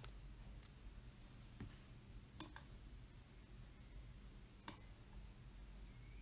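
Near silence over a faint low hum, broken by a few faint sharp clicks: a pair in quick succession about two and a half seconds in and another just before five seconds.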